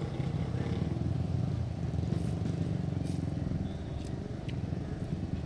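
An engine running steadily with an even low rumble, with a few light clicks of plastic cutlery against a plastic bowl.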